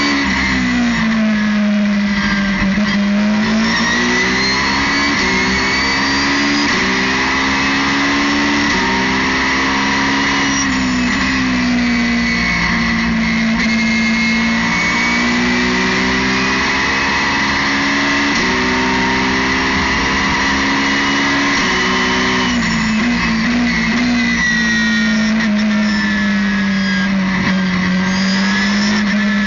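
Ferrari 458 GT2's V8 racing engine at full load, heard from inside the cockpit. Its pitch climbs in steps as the car shifts up through the gears. A little past two-thirds through it drops sharply, with a few quick blips as it shifts down, then pulls up again.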